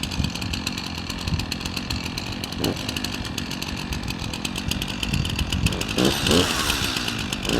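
Gas chainsaw engine running steadily, growing louder with its pitch swinging up and down in the last second or two.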